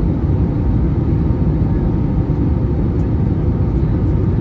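Steady low rumble inside the cabin of an Airbus A321neo with CFM LEAP-1A engines, heard from a window seat over the wing: engine and airflow noise during the approach descent, flaps extended.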